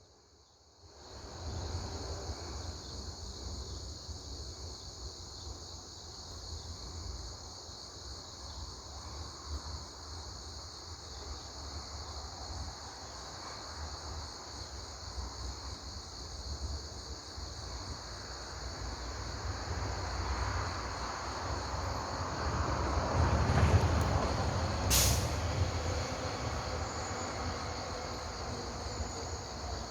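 Steady high insect chorus over a low rumble. The rumble swells about three quarters of the way through, and there is one sharp click shortly after.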